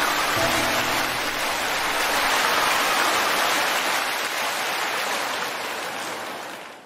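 A large crowd applauding, a dense, steady clatter of many hands that fades away near the end.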